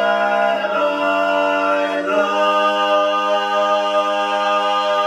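Male barbershop quartet singing a cappella in close four-part harmony, holding the song's closing chords: one chord shifts to another about two seconds in, and the final chord is sustained.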